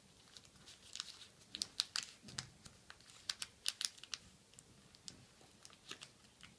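Square of origami paper being folded and creased by hand, edges pressed flat with the fingers: a scatter of faint, crisp paper crackles and ticks, thickest in the first half.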